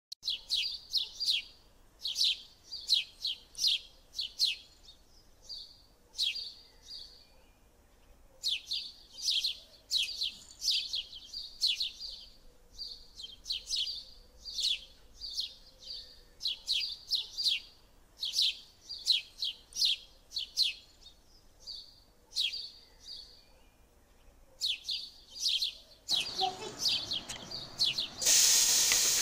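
A small bird chirping over and over in quick runs of high notes. Near the end, a loud steady sizzle starts as chopped onion-tomato masala goes into hot oil.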